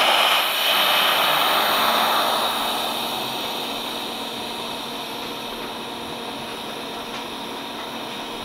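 TIG welding arc burning steadily on a stainless steel tank fitting, a constant hiss with a faint hum. It is loudest in the first couple of seconds, then settles slightly lower.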